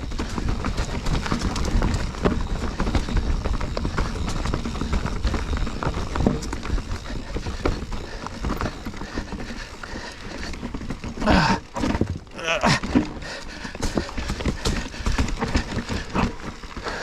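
Mountain bike clattering and rattling over rocky trail at speed, with steady tyre and rushing noise. Two brief louder sounds come at about eleven and a half and twelve and a half seconds in.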